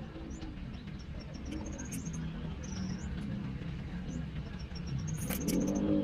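Steady low rumble of road traffic, rising near the end, with short high chirps scattered through it.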